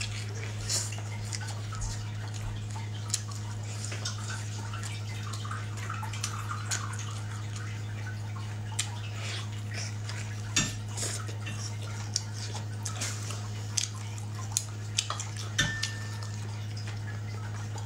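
Eating sounds: mouth noises of chewing meat and light clicks of chopsticks against bowls and plates, coming more often in the second half, over a steady low electrical hum.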